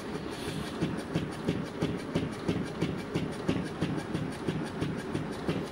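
Homemade rotary subwoofer, a motor-driven fan mounted in a wall panel, running on a 3 Hz sine wave. The 3 Hz tone itself is too low to hear, so what is heard is a fast, even mechanical clatter as the blades and the shaking panel rattle.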